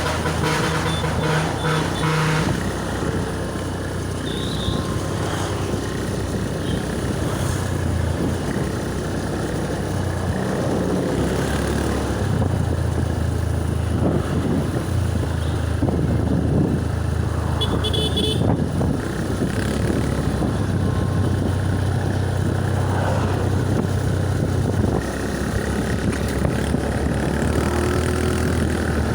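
Road traffic: motor vehicles and motorcycles running past, with a horn sounding for the first couple of seconds.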